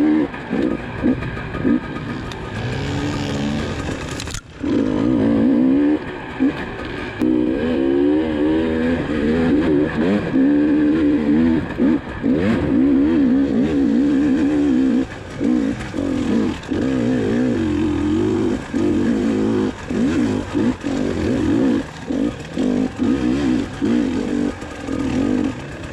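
GasGas dirt bike engine revving up and down as the rider works the throttle on and off. There is a short break about four seconds in.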